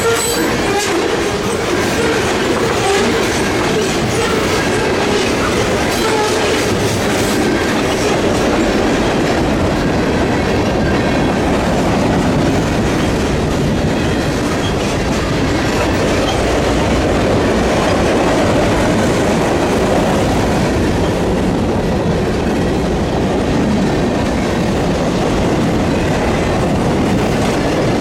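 Freight train cars rolling past at close range, their steel wheels clicking over rail joints, with a steady rumble of wheels on rail. The clicks are densest in the first several seconds, then give way to a smoother rolling rumble.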